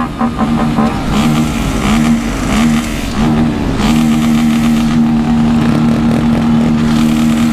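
Motorcycle engines running and revving in a large group ride. The pitch dips and comes back several times in the first half, then holds steady.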